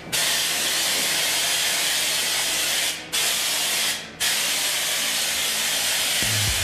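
Compressed-air spray gun hissing steadily as it sprays a second coat of LizardSkin sound-deadening coating, cutting out briefly twice, about three and four seconds in.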